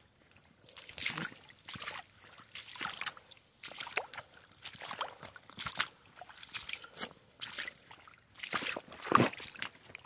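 Footsteps in rubber boots wading through shallow water on a flooded track, each step sloshing and splashing, about one or two steps a second.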